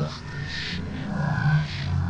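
A man's voice vocalising, broken up, with a few short hissing sounds.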